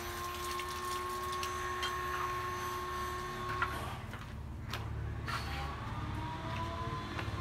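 Water running from an outdoor tap and splashing over hands being rinsed. In the second half a low rumble comes in, with a couple of sharp clicks.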